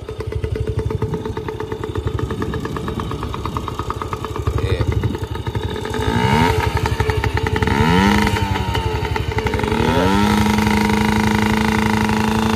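Yamaha PW-50's 49cc two-stroke engine idling, then revved three times in quick rising blips about six to nine seconds in, then held at a steady higher speed near the end.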